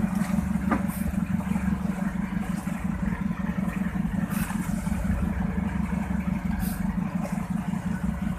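Fishing boat's engine running steadily, a low throb with a fast, even pulse.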